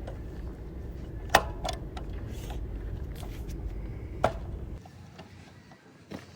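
A few light metallic clicks and clinks of transmission parts and tools being handled, over a low steady hum that stops about five seconds in.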